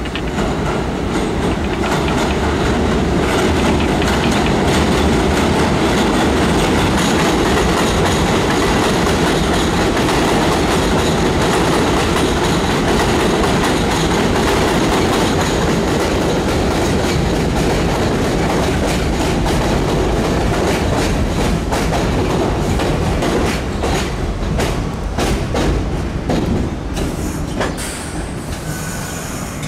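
R62A subway train running along an elevated steel structure and pulling into the station: a loud, steady rumble of wheels on rails. In the last several seconds, as it slows, the rumble thins into separate wheel clicks over the rail joints, and there is a brief high squeal near the end.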